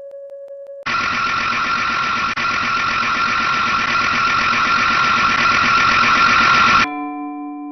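Emergency alert alarm sequence: a steady single tone with faint regular ticks gives way, about a second in, to a loud, harsh buzzing alarm tone. The buzz holds for about six seconds, growing slightly louder, then cuts off abruptly. Near the end a clean electronic keyboard chime of held notes begins.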